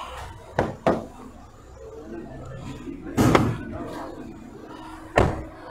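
Clunks and clicks from a Dongfeng SX5's driver's door and latches as the door is opened and the bonnet release is reached for: two light clicks near the start, a heavy thud about three seconds in, and a sharp clunk near the end.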